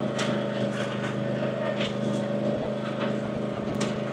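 Zero-turn riding mower's engine running steadily as it tows a lawn roller over rough ground, with a few faint clicks mixed in.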